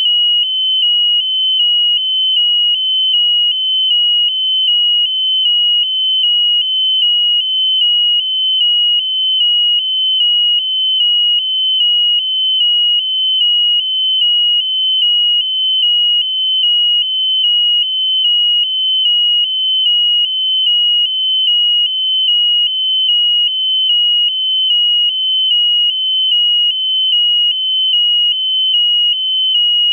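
Electronic buzzer on the balloon payload sounding one high, shrill tone without a break, pulsing evenly in level like a smoke alarm.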